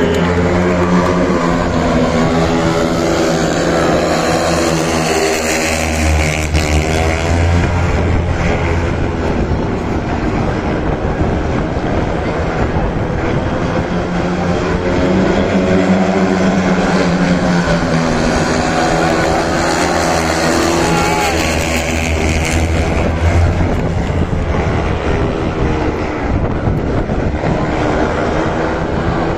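Speedway motorcycles racing around the dirt track, their single-cylinder engines rising and falling in pitch in waves as the riders go through the bends and down the straights.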